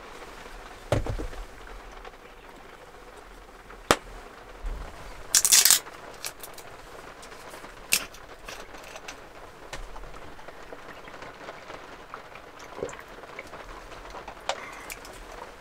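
Heavy rain falling steadily on a small camper's roof and window, with sharp clicks and knocks of bottles being handled and set down on a wooden table, a brief crackle about five seconds in, and the click of a plastic bottle cap being twisted open about eight seconds in.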